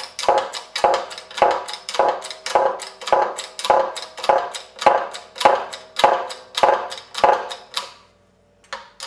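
Hand-pumped 20-ton hydraulic bottle jack of a homemade shop press being worked steadily, pressing a new bearing into a rear brake drum. A repeating metallic clack with a ringing note comes about twice a second, and the pumping stops about eight seconds in.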